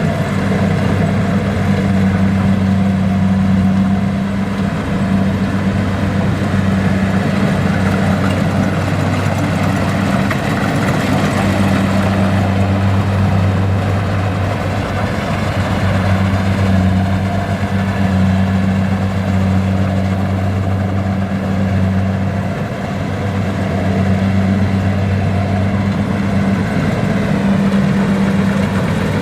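Kubota combine harvester's diesel engine running steadily with a constant low hum, easing off briefly a little over three-quarters of the way through.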